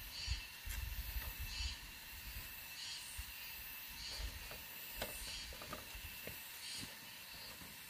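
Garden hoe chopping into soft soil, giving dull thuds and a few sharp clicks, mostly in the first two seconds and again about five seconds in. Under it runs a steady high hiss with a faint call repeating about once a second.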